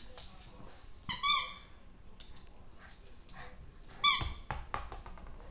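Shih Tzu puppy letting out short, high-pitched squealing yelps while play-wrestling with an adult dog, once about a second in and again near four seconds, with light scuffling between.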